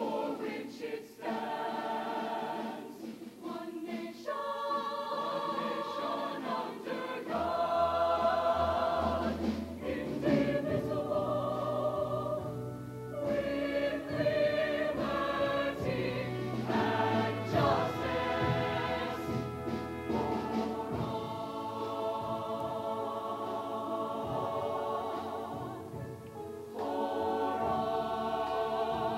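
Mixed show choir of male and female voices singing a song in harmony. Low bass notes come in under the voices about seven seconds in.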